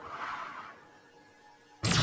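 Anime fight soundtrack: quiet, with a brief soft rush of noise in the first half-second, then a sudden loud blast of sound effects and music just before the end.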